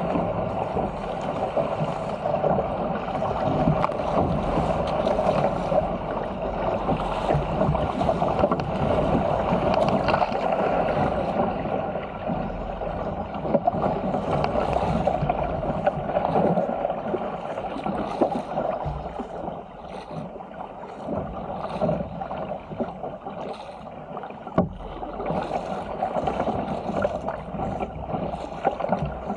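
Sea water rushing and splashing along the hull of a Stealth 475 fishing ski paddled fast downwind through chop, with paddle strokes slapping the water. The wash is steady and loud, easing off for a few seconds past the middle.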